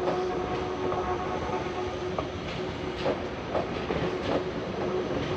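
Train rolling through the station, its wheels clacking over rail joints and points about twice a second, under a steady hum.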